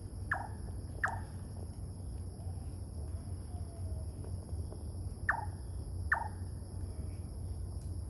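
Large-tailed nightjar calling: two short, sharp "tew" notes that each drop in pitch, then about four seconds later two more. A steady high insect drone and a low background rumble run underneath.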